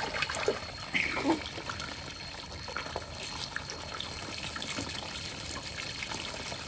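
Steady trickle of running water, with a couple of short high-pitched sounds about a second in.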